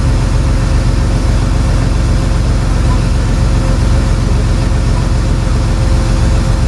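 Truck engine running at a steady speed: an even, low drone that does not change.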